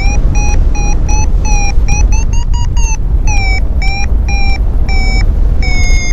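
Paragliding variometer beeping in quick short pulses, about three a second, its pitch shifting up and down with the climb rate: the audio signal that the glider is climbing in a thermal. Steady wind rush on the microphone underneath.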